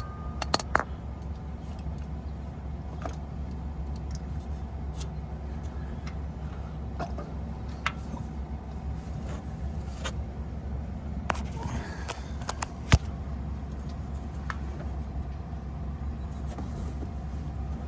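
Scattered metallic clicks and clinks of hand tools being worked on a car's underside, a few at a time at irregular intervals, with a sharper knock about 13 seconds in, over a steady low hum.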